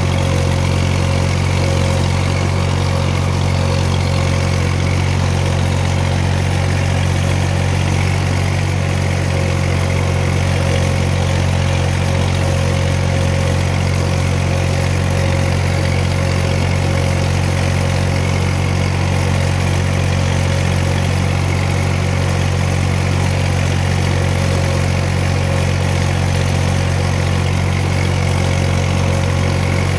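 A machine running steadily: a constant low drone with a steady hum above it, never changing in pitch or level.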